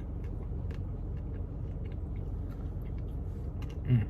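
A person chewing a mouthful of ice cream with candy pieces, with small soft clicks over a steady low rumble. A short hummed sound comes from the voice just before the end.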